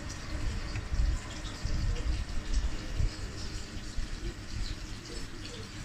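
Water running and gurgling in a fish tank, with an uneven low rumble and small scattered ticks.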